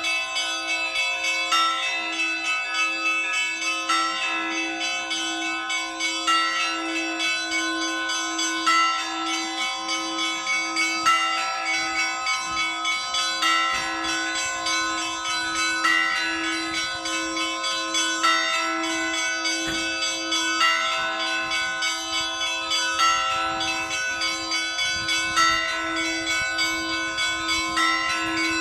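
Russian church bells ringing a repeating peal: one lower bell is struck steadily about once every 0.7 s, under a higher phrase of smaller bells that comes round again about every two and a half seconds.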